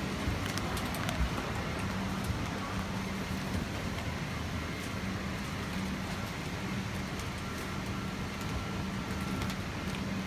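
Steady cabin noise of a Boeing 777-200ER airliner, the ventilation hiss over a low hum, with scattered light clicks and cloth brushing against the microphone.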